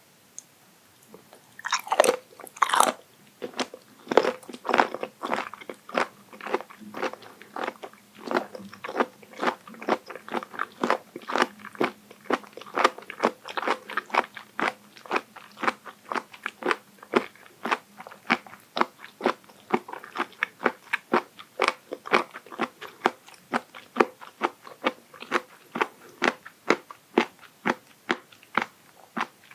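A person biting into and chewing raw abalone sashimi, the firm flesh crunching with each chew. A couple of loud bites come about two seconds in, then steady chewing at about two to three crunches a second.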